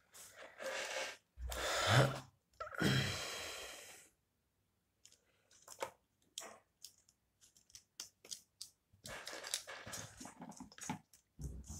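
Small plastic parts handled close up: rustling and scraping in two longer stretches near the start, then scattered small clicks and more rustling near the end.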